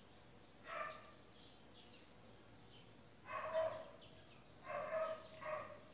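Faint animal calls: four short pitched cries, the longest and loudest a little over three seconds in, with quiet room tone between them.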